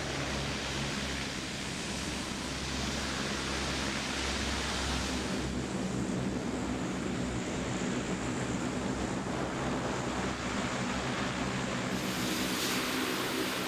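Four-engine C-130 Hercules turboprops running as the aircraft taxis: a steady roar over a low hum. The tone shifts about five seconds in and again near the end.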